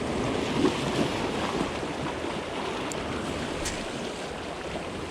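Sea surf washing against a rocky shore, a steady rushing with a couple of faint ticks about three and four seconds in.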